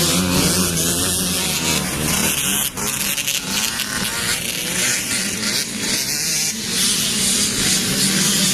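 Off-road motorcycle engines running and revving, with a brief drop in level and a few sharp clicks about three seconds in.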